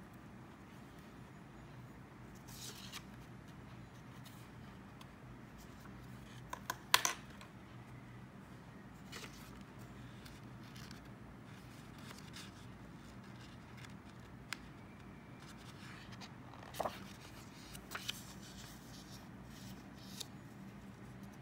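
Loose sheet of paper rustling and being handled over a sketchbook page, with scattered light taps and scratches and a few sharper clicks, two of them about a third of the way in and about four fifths of the way in. A low, steady room hum lies under it all.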